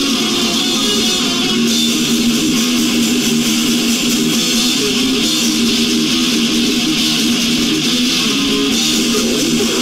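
Death metal band playing live: heavily distorted electric guitar and bass in a dense, loud, unbroken wall of sound.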